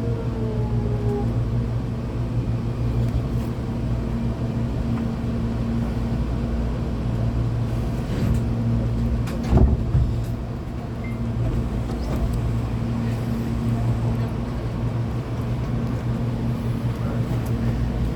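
Hankyu 8200 series electric train's Toshiba GTO-VVVF inverter whine falling in pitch as the train brakes to a stop, fading out about a second in. Then the steady low hum of the standing train's equipment, with a single thump about halfway.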